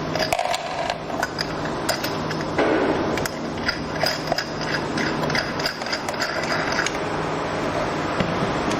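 Small metal parts clicking and scraping as a nut is threaded and tightened onto a bracket screw. The clicks come irregularly and are busiest in the middle.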